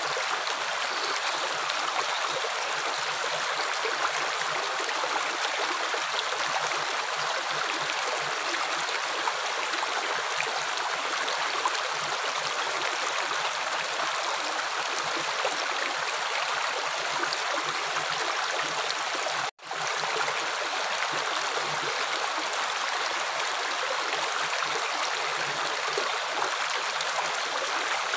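Steady flowing water, like a stream, rushing evenly, with a split-second dropout about two-thirds of the way through.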